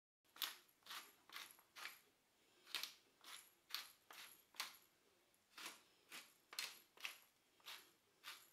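Pepper mill grinding black pepper: about fifteen short grinding strokes, roughly two a second, in runs of four or five with brief pauses between.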